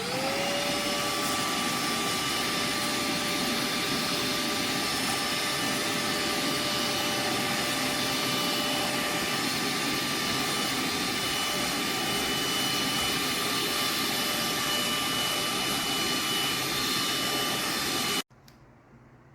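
Cordless handheld vacuum motor spinning up with a quick rising whine, then running steadily with a high whine and airflow noise, stopping abruptly about a second before the end.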